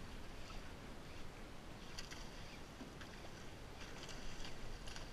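A few brief splashes on the water surface, about two seconds in and again around four seconds in, as bluefish strike at a teaser being pulled across the surface, over a faint, steady wash of water.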